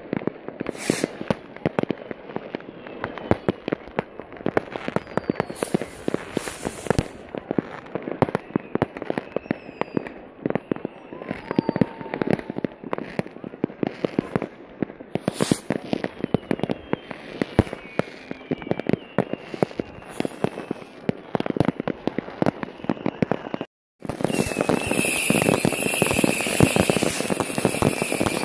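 Many fireworks going off at once: a constant crackle of firecrackers and rocket bangs, with several whistling rockets falling in pitch. Just before the end the sound drops out for a moment, then comes back as a denser, louder crackle with steady whistles.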